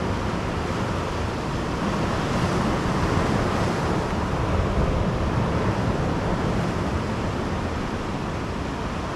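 Ocean surf breaking on the shore with wind, a steady rushing noise.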